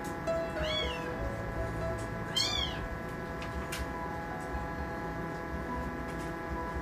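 Very young kitten mewing twice, two thin high-pitched mews that rise and fall, about a second and a half apart, over soft background music.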